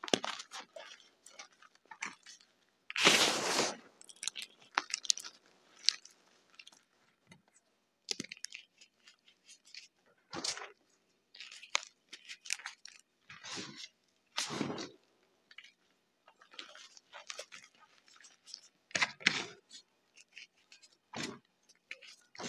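Hands squeezing, crushing and raking through a pile of crumbled gritty gym chalk (BSN chalk mixed with reformed chalk bars): irregular gritty crunches and soft squishes, the longest and loudest about three seconds in.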